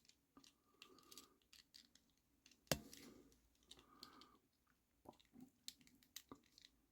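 Faint, scattered clicks and taps of a small plastic toy DeLorean's door being handled and pressed into place, with one sharper click about two and a half seconds in.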